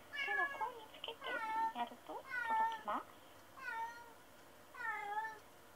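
Domestic cat meowing over and over, five drawn-out meows about a second apart, each falling in pitch at its end. It is a lonely crying while left alone at home.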